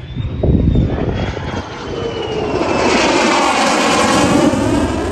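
F-35A Lightning II's Pratt & Whitney F135 afterburning turbofan making a close, loud pass in a tight turn. The jet rumble swells to a peak about three to four seconds in, and a high whine slides slowly down in pitch as it goes by.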